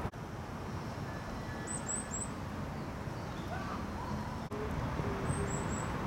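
Outdoor park ambience: a steady low rumble of distant traffic, with a small bird's high chirps in quick groups of three, about two seconds in and again near the end. From past the middle, a pigeon's low hooting coos repeat.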